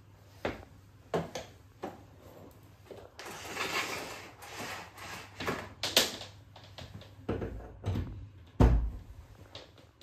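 Handling noise as a Bosch canister vacuum cleaner is carried in, set down on a hard floor and readied, with footsteps, scattered knocks from the body and hose, and rustling and scraping about three to five seconds in; the loudest is a deep thump near the end. The vacuum's motor is not running.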